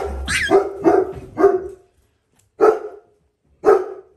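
Adult Dalmatian barking: a quick run of about five deep barks over the first two seconds, then two single barks about a second apart.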